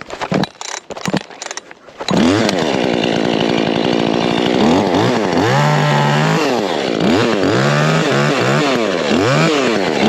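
A few knocks and rustles, then a chainsaw starts about two seconds in. Its pitch rises steadily at first, then revs up and down over and over, about once a second.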